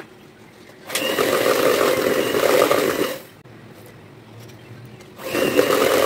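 Electric hand mixer running in two bursts, each starting and cutting off sharply: the first about a second in, lasting about two seconds, the second starting about five seconds in. It is beating an egg and vanilla essence into cake batter in a plastic bowl.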